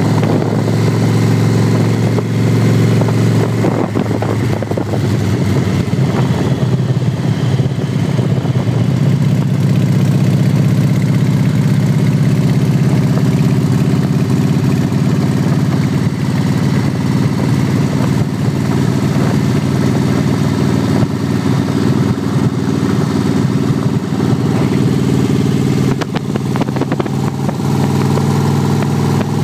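Harley-Davidson motorcycle's V-twin engine running steadily under way, heard from the rider's seat. Its note shifts about five seconds in, then holds.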